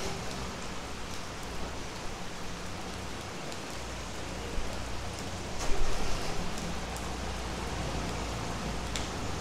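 Steady rain falling, an even hiss. From about four seconds in a car passing on the wet street adds a low rumble, and the sound swells briefly near six seconds.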